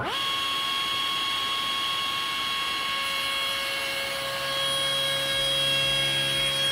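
Table saw switched on, its motor whine rising quickly to speed and then running steadily. A few seconds in, a hardwood board is fed through the spinning blade and a lower cutting sound joins the whine.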